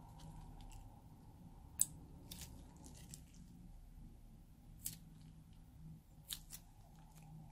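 A plastic bag of slime being handled and squeezed out: scattered sharp plastic clicks and crinkles, the loudest about two seconds in, with two more near the end.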